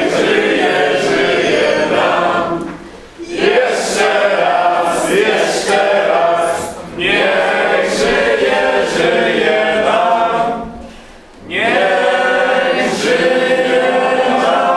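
A group of voices singing together in phrases, with short breaks about every four seconds.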